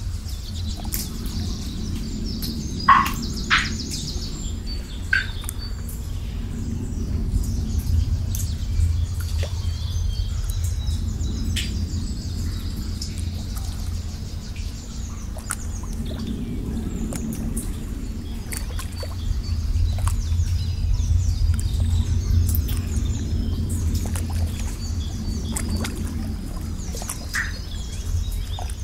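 Nature ambience: small birds chirping over a steady low rush of flowing water that swells and eases every few seconds, with a few sharp drip-like plinks about three seconds in.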